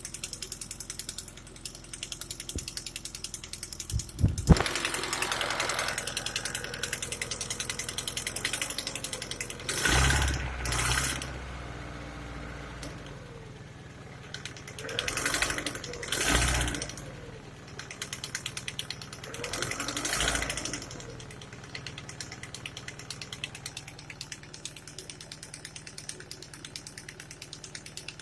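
Engine running with a fast, even metallic knocking that the owner places in the first cylinder; the revs rise and fall several times, and there is one sharp thump about four seconds in.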